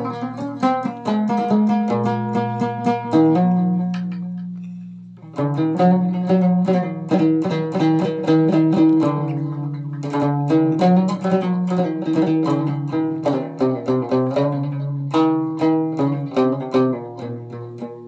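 Moroccan loutar, a plucked lute, playing a quick melody of picked notes over a steady low drone. About three and a half seconds in, the picking stops and a held note rings down for a couple of seconds, then the playing starts again.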